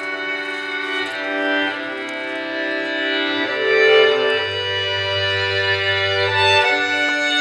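Slow instrumental music with long held notes, a deep bass note coming in about halfway through and fading out near the end.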